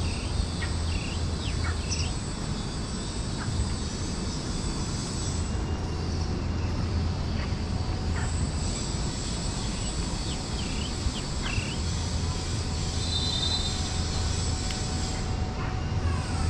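Steady outdoor ambience: a low even rumble with scattered short bird chirps and a thin, high, steady whine that breaks off twice.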